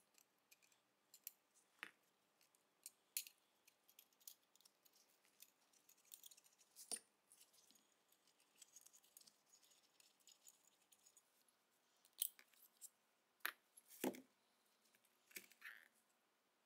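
Faint, scattered metallic clicks and light scraping from a rusted Tokarev TT-30 pistol slide and its rusty recoil spring being handled and pulled out, with a few sharper clicks near the end.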